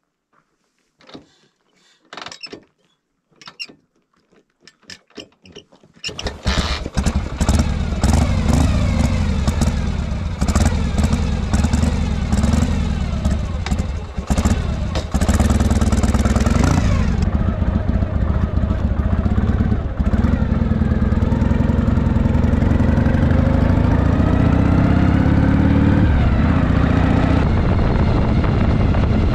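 A few scattered clicks and knocks, then about six seconds in a Harley-Davidson V-twin motorcycle engine starts and idles with a few throttle blips. It then pulls away and accelerates through the gears, the pitch rising and dropping back at each shift.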